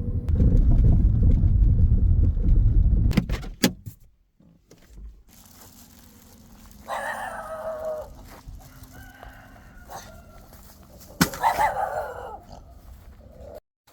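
A loud low rumble for the first few seconds, ending with a few clicks. Then a rooster crows twice, about four seconds apart, over a quiet background.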